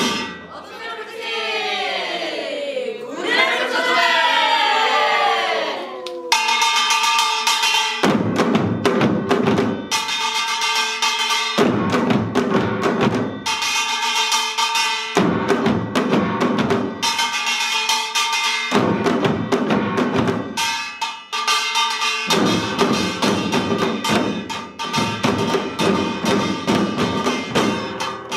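Samul nori percussion ensemble playing a Yeongnam rhythm: janggu hourglass drums and buk barrel drums beating in repeated phrases of three to four seconds, with metal ringing over them. It opens with about six seconds of long gliding voices before the drumming takes over.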